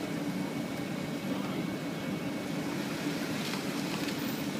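Jeep Wrangler Rubicon's 3.6-litre V6 running low and steady as the Jeep crawls slowly over a tilted off-road ramp.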